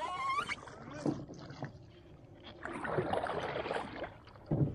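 A rising shout of excitement, then water splashing against a canoe for about a second and a half, ending with a short low thump near the end.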